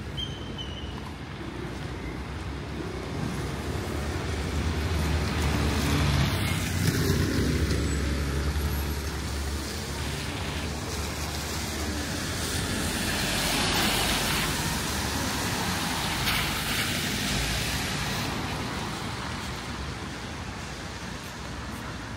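City street traffic: vehicles passing close by. The loudest pass, with a heavy low engine rumble, swells up and fades about six to eight seconds in, and a second vehicle passes about fourteen seconds in.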